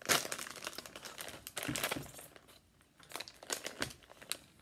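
Popcorn snack bag crinkling as it is pulled open by hand: an irregular run of crackles, busiest at the start, dying down about halfway and returning as scattered crinkles near the end.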